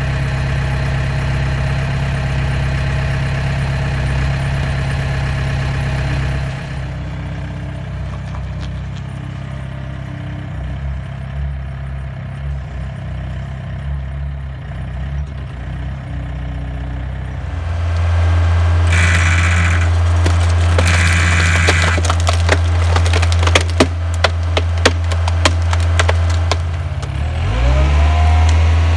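Compact loader's engine running steadily. About two-thirds of the way in, the loader's hydraulic screw cone log splitter starts driving into a log with a louder, steady low drone. Over its last few seconds the wood cracks and splinters in a string of sharp snaps.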